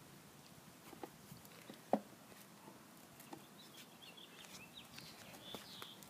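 Faint outdoor background with a few small clicks and knocks, the loudest about two seconds in, and faint high chirps in the second half.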